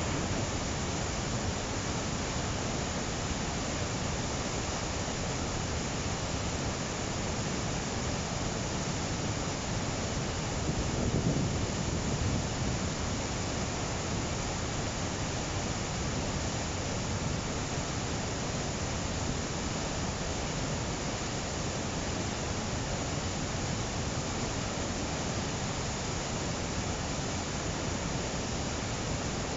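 Shallow whitewater rushing over a rock ledge at a waterfall, a steady even rush that swells briefly about eleven seconds in.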